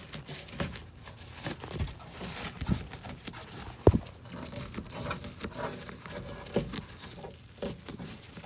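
Handling noise of a wire harness being squeezed through the foam and metal of a car door: irregular rustling and soft knocks, with one sharp knock about four seconds in.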